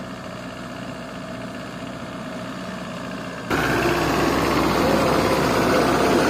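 Old Jeep 4x4's engine running steadily, heard from the jeep on a rough dirt track; about three and a half seconds in it becomes louder and closer.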